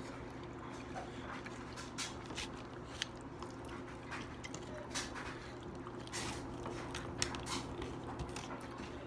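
People chewing and biting into fried chicken: scattered short wet mouth clicks and smacks over a steady low hum.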